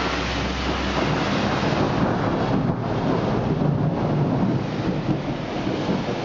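Steady rain in a thunderstorm, with a low rumble swelling about the middle.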